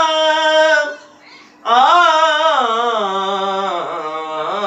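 A man's voice singing a naat unaccompanied: one held note, a short pause about a second in, then a long melismatic phrase with the pitch sliding up and down.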